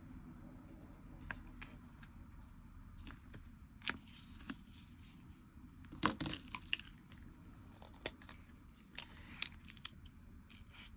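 Faint rustling and scattered small clicks of a thin origami-paper strip being twisted and laid down on a table. The loudest cluster comes about six seconds in.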